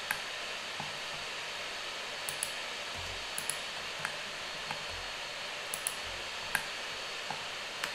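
Computer mouse and keyboard clicks, about a dozen short, sharp clicks at irregular intervals, over a steady background hiss.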